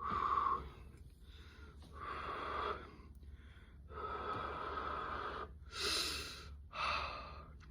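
A man breathing hard in and out through his mouth, about five noisy breaths, drawing air over a tongue just scalded by very hot coffee.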